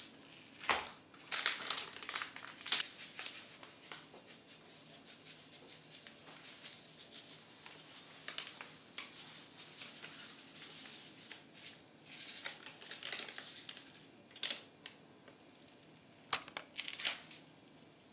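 A slime-powder sachet crinkling, torn open and shaken, with clusters of sharp crackles, thickest in the first few seconds and again near the end.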